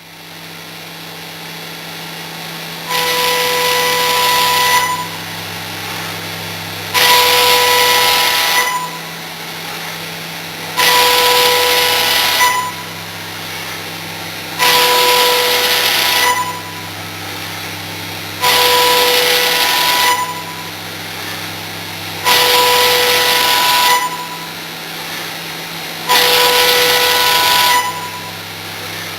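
Milling machine cutting aluminium. The spindle hums steadily, and about every four seconds the cutter bites into the aluminium for roughly two seconds: a loud, hissing cut with a steady whine, repeated seven times in a regular back-and-forth rhythm.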